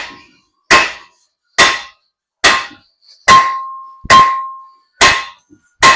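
Hand hammer striking the stuck front wheel hub assembly of a 2005 Ford Excursion to knock it loose: about eight sharp metallic blows, a little more than one a second, each ringing briefly, two of them near the middle ringing on longer.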